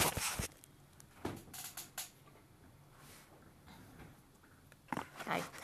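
Handling noise from a phone being moved and set back in place: a loud rustling knock at the start, then a few scattered light knocks and clicks with quiet between.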